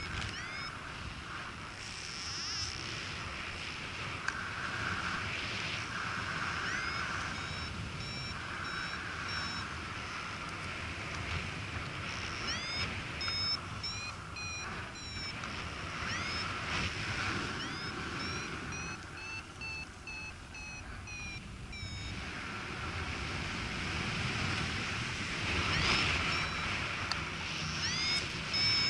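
A paraglider's variometer beeping in runs of short, quick, rising-pitched chirps, which signals that the glider is climbing. The beeps pause now and then. Wind rushes on the camera microphone throughout.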